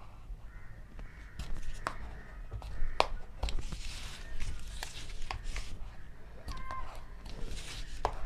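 Hands handling the plastic tray and tempered-glass screen protector on a phone: a series of sharp plastic clicks and taps with light rustling.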